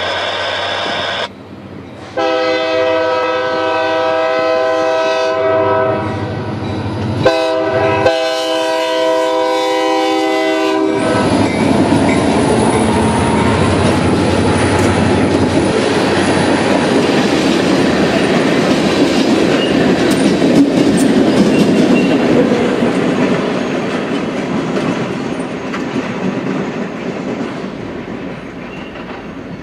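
A Norfolk Southern diesel locomotive's multi-chime air horn blows the grade-crossing signal: long, long, short, long. Then the locomotive and its freight cars roll past, wheels clacking over rail joints, the noise fading near the end.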